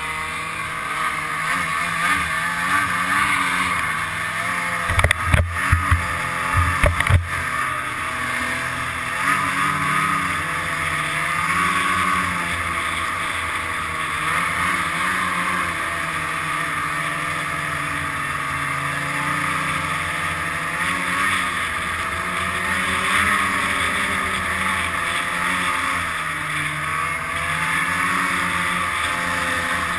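Ski-Doo Formula snowmobile's two-stroke engine running on the trail, its pitch rising and falling with the throttle, with wind noise on the microphone. A cluster of sharp knocks about five to seven seconds in are the loudest sounds.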